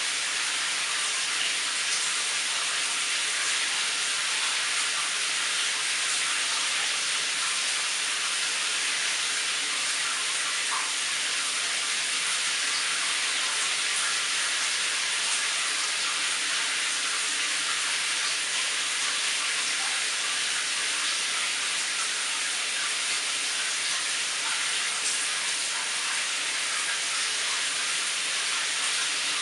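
Shower running: a steady, unchanging spray of water.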